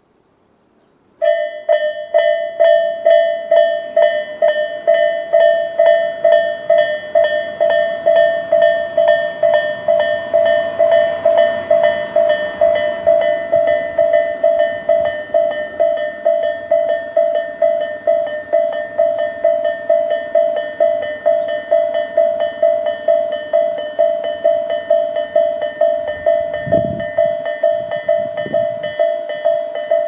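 Japanese railway level-crossing electronic warning bell of the Tobu "sound A" type, starting suddenly about a second in and ringing steadily at a little over two dings a second: the crossing's warning that a train is approaching.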